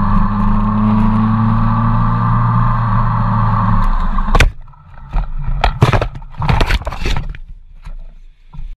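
Motorcycle engine running steadily, then dropping away just before a sharp crash about four and a half seconds in. A burst of loud knocks and scraping follows as the motorcycle goes down on the road.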